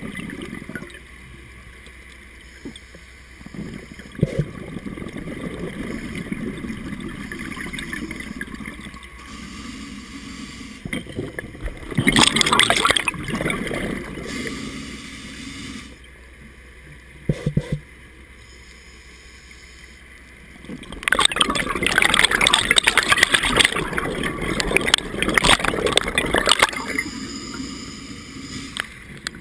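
Scuba regulator breathing underwater: exhaled air bubbles gurgle past in loud rushes, one about twelve seconds in and a longer one about twenty-one seconds in, with quieter regulator noise between breaths.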